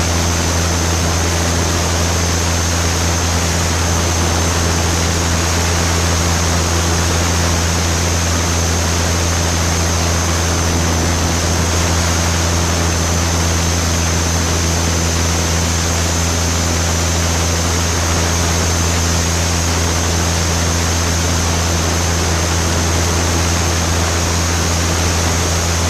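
Piper Super Cub's piston engine and propeller running at a steady cruise, a loud, even drone with a low hum, a thin high whine and a wash of air noise, with no change in power.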